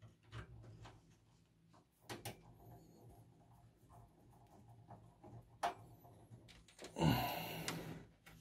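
Faint scattered clicks and knocks of hands fitting parts and a screw inside a desktop PC case. About seven seconds in comes a longer, louder scraping rush of handling that lasts about a second.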